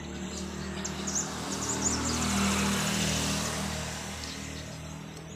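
Engine of a passing vehicle or aircraft, a steady low hum that swells to its loudest about two and a half seconds in and then fades away.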